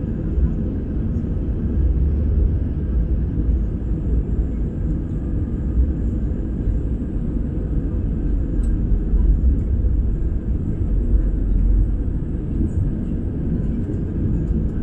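Steady low rumble of an Airbus A320 heard from inside the cabin while it moves on the ground.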